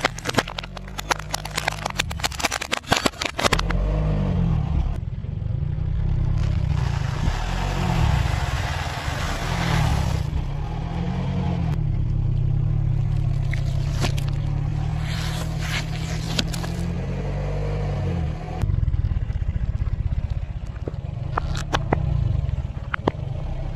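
A car tyre rolling onto a plastic wall clock, its glass face and plastic casing cracking in a rapid run of sharp snaps over the first three seconds or so. After that the car's engine runs steadily under the rest, with scattered cracks and pops as more things are squashed under the wheel.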